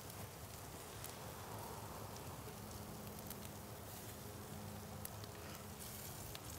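Faint sizzling and crackling of ribeye steaks on a charcoal kettle grill as they are basted with melted garlic butter, with a few light clicks. A faint steady hum runs underneath from a couple of seconds in.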